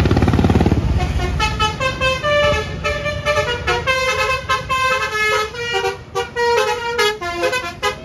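A bus's telolet horn plays a fast tune of stepped musical notes, starting about a second in and running on. At the start a motorcycle engine passes close.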